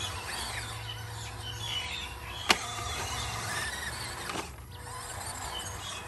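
Electric motor and gearbox of an RC Toyota Land Cruiser crawler whining steadily as it crawls slowly through sand. A single sharp click comes about two and a half seconds in.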